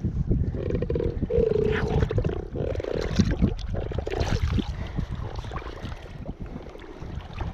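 A catfish held in shallow water croaks three times in the first three seconds, short rasping grunts. Water sloshes around it, and wind rumbles on the microphone.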